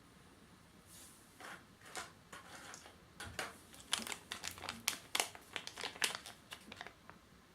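Plastic packaging crinkling and rustling as it is handled and opened, in irregular crackly bursts that are busiest and loudest in the middle.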